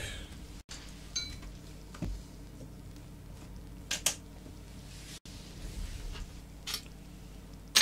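Scattered clinks and knocks of small metal tools and parts being handled and set down on a work table, the sharpest near the end. The sound cuts out briefly twice.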